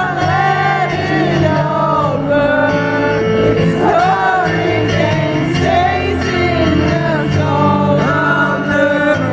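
Live acoustic band performance: a sung melody with long held, wavering notes over steady acoustic guitar chords.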